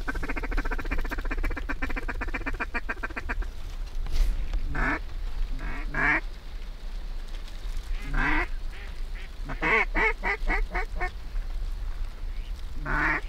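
Mallard quacking: a fast chatter of quacks for the first three seconds or so, then single quacks and a quick run of about six quacks around the ten-second mark. A steady low rumble lies under it.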